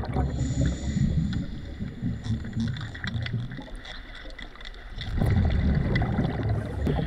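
Scuba diver's exhaled bubbles rumbling from the regulator, heard underwater: one long exhalation, a quieter pause of about a second and a half for the in-breath, then a second exhalation. Faint scattered clicks sound throughout.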